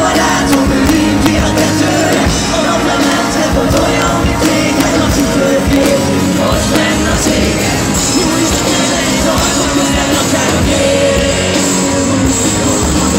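Live rock band playing a song on stage, with drums and guitar, loud and continuous, heard from among the audience in an arena.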